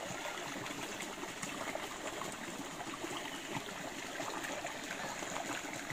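Shallow rocky creek running steadily, water trickling over stones and down a small cascade between boulders.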